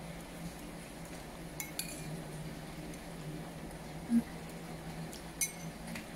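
Metal spoon clinking against a ceramic soup bowl: a couple of quick clinks about a second and a half in and again near the end. About four seconds in, a spoonful is taken into the mouth with a short low mouth sound, the loudest moment. A steady low hum lies under it all.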